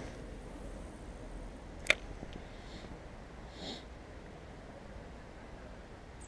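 A cast with a spinning rod and reel: a single sharp click about two seconds in, then a short, softer rasp near the middle, over a low steady outdoor background.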